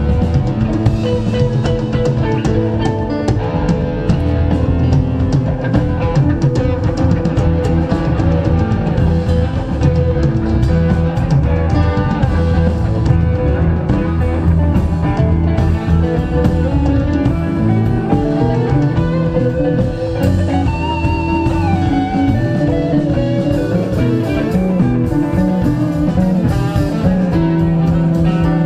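Live rock band playing an instrumental jam: electric guitars, bass guitar and drum kit, with a sustained lead guitar line that bends in pitch about two-thirds of the way through.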